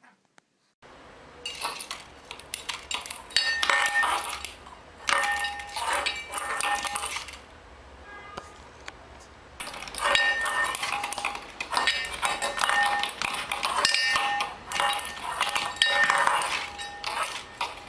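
Repeated clinking and clattering of hard objects, like dishes or metal knocking together, with some ringing. It comes in two long busy stretches with a quieter lull about halfway.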